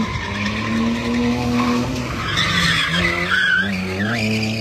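Drift car's engine held high in the revs while its rear tyres skid and squeal through a smoky slide. The revs sag about two seconds in and climb again, and the tyre squeal is loudest in the second half.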